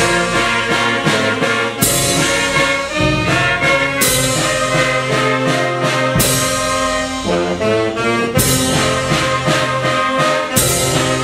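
Community wind band playing: trumpets and saxophones in harmony over a sousaphone bass line, with a crash of hand cymbals about every two seconds.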